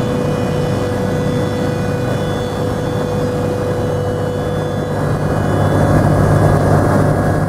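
Single-engine light aircraft's piston engine and propeller running steadily, heard from inside the cockpit with a rush of wind noise.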